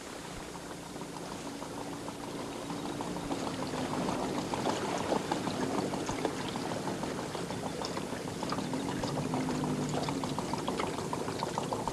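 Small boat's outboard motor running with a steady hum that wavers a little in pitch, under water sloshing and bubbling around the hull.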